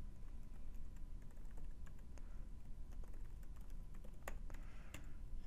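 Quiet typing on a computer keyboard: a run of irregular key clicks.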